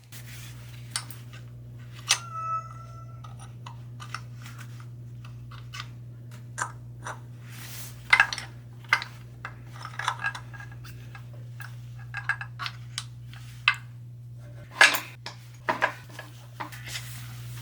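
Metal parts of a cast iron air compressor pump clinking and clanking as they are handled and taken apart, with one part ringing briefly about two seconds in and a few louder knocks later on. A steady low hum runs underneath.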